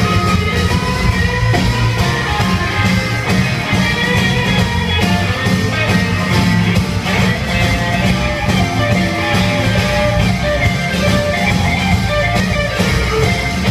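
Live blues band playing with electric and acoustic guitars, bass and drums, on a steady beat.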